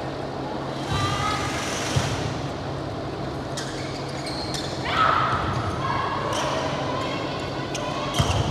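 Ball thuds and short high squeaks of sneakers on an indoor court floor during play, echoing in a large hall.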